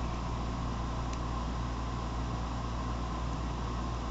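Steady low hum and hiss of room background noise, with a faint click about a second in.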